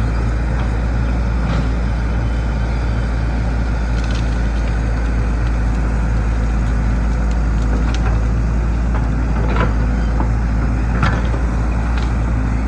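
Hyundai 220LC excavator's diesel engine running steadily, with a few short knocks scattered through, the sharpest about eleven seconds in.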